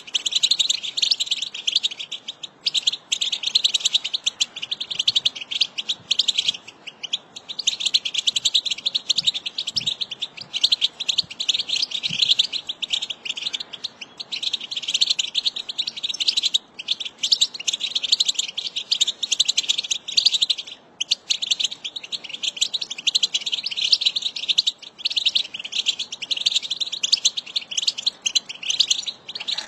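American goldfinch singing: long runs of rapid twittering chirps, broken by a few brief pauses.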